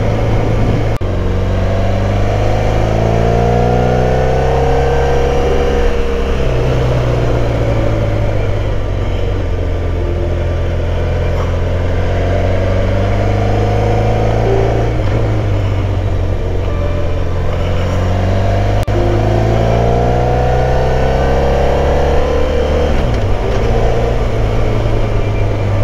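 Motorcycle engine pulling hard under acceleration, its note climbing in pitch and then dropping back several times as it shifts through the gears, over steady road and wind noise.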